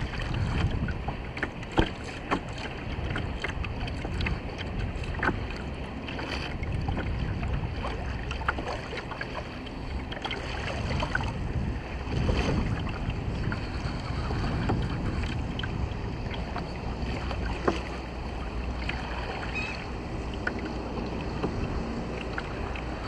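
Choppy water lapping and slapping against a plastic fishing kayak's hull, with wind rumbling on the microphone. Scattered sharp clicks and knocks run through it, the sharpest about two seconds in and again about eighteen seconds in.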